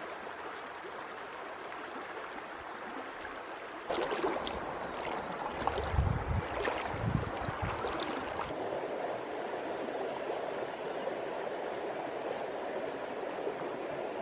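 Shallow river running steadily over stones. About four seconds in it gets louder, with a few seconds of rustling and knocking and some low thumps, then the steady flowing water goes on.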